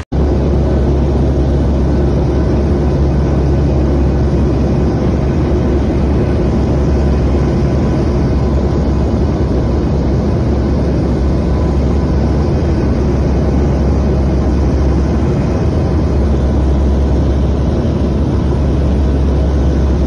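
Steady engine drone inside an aircraft cabin in flight, a deep hum with a few steady tones over rushing air noise.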